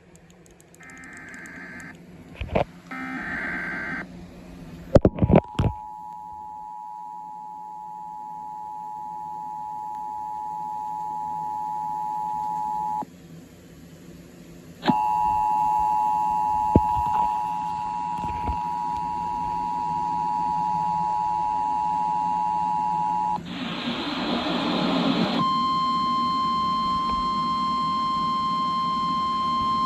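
Emergency Alert System tones: a few short warbling data bursts with clicks, then the two-tone attention signal held steady for about seven seconds, stopping and starting again for another eight seconds. A brief burst of static follows, then a single steady tone to the end.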